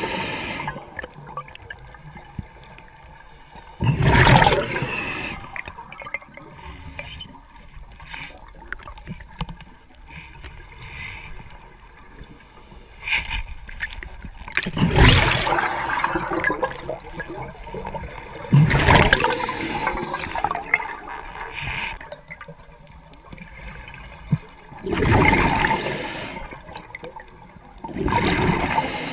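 Underwater recording of a diver's exhaled air bubbles, gurgling past the camera in several loud surges a few seconds apart, with faint clicking in between.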